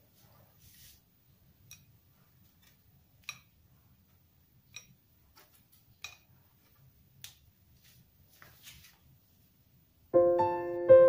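About six faint clinks and taps of kitchenware, roughly one every second and a half, as fried beef lung is tipped from a glass bowl into a ceramic mortar of sambal. Piano music starts abruptly near the end and is much louder.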